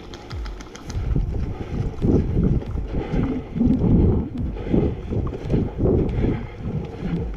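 Footsteps of a person moving quickly on grass: low, regular thumps a little more than twice a second, with gear jostling and wind buffeting the body-worn microphone.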